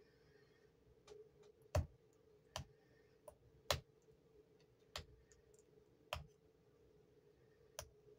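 Sharp, separate clicks and small snaps as fingers pick at the edge of a cured epoxy resin coaster, about eight at uneven intervals, over a faint steady hum.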